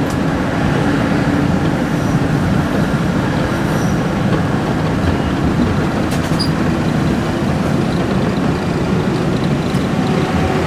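UTDC/Hawker Siddeley CLRV streetcar running along the track, heard from on board: a steady noise of steel wheels on rail and traction motors.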